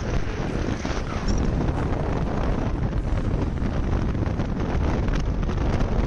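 Wind buffeting the microphone over the steady rumble of a car driving along a road.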